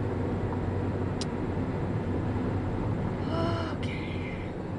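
Steady road and engine noise inside a moving car's cabin at highway speed. There is a brief pitched squeak-like sound about three and a half seconds in, and a faint click about a second in.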